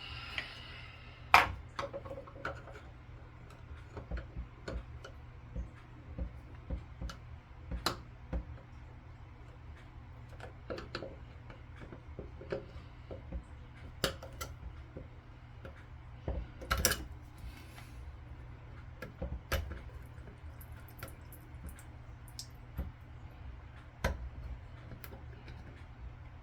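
Scattered clicks, taps and light knocks of hand tools working on faucet parts, irregular throughout, with the sharpest knock about a second and a half in.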